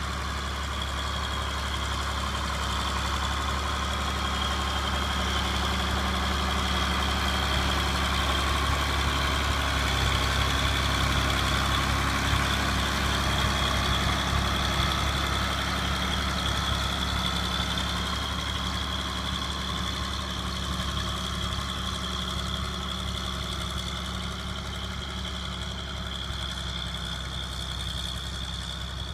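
John Deere 4240 tractor's turbocharged six-cylinder diesel working steadily under load while pulling a five-furrow reversible plough, with a steady high whine over the low engine note. It grows louder toward the middle, then slowly fades as the tractor moves away.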